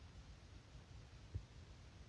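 Near silence: a low room rumble, with one brief low thump a little past halfway.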